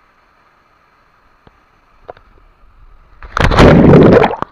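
Steady faint rush of waterfall water, then about three seconds in a loud splash of water right at the microphone, lasting about a second.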